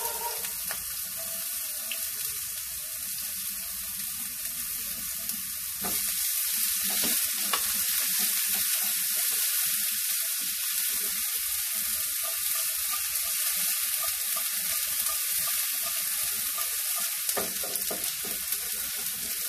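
Chopped onion, garlic and tomato sizzling in a little hot oil in a frying pan as they are sautéed and stirred with a spatula. A steady frying hiss that gets louder about six seconds in, with a few light spatula strokes against the pan.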